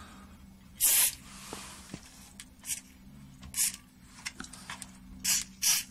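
Short spurts of aerosol contact cleaner sprayed into the faders of a drum machine's circuit board, about five hisses in all, the strongest about a second in, with a few faint clicks between.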